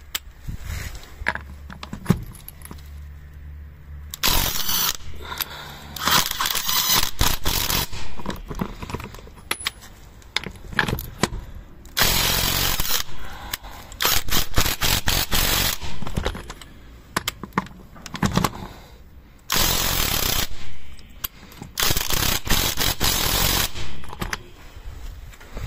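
Yato YT-82805 18 V cordless impact wrench (300 Nm) hammering on wheel nuts in about six bursts of a second or two each, with quieter gaps between.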